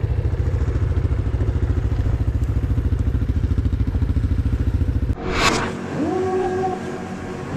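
A loud engine running with a rapid, steady beat. About five seconds in it cuts off abruptly and a short burst of hiss follows, then a quieter sound that rises in pitch and levels off.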